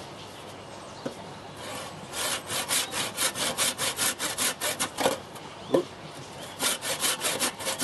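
Hand saw cutting through a log in quick back-and-forth strokes, several a second. After a short pause with a knock, the sawing starts again.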